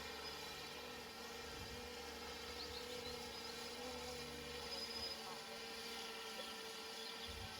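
3DR drone's rotors buzzing steadily as it hovers, a held tone with a slight waver in pitch.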